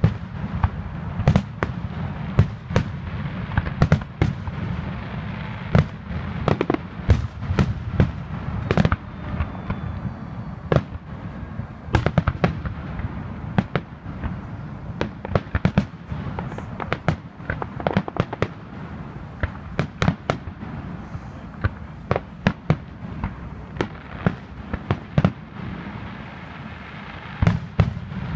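Aerial fireworks shells bursting in a rapid, irregular barrage of sharp bangs, several a second, over a steady low rumble.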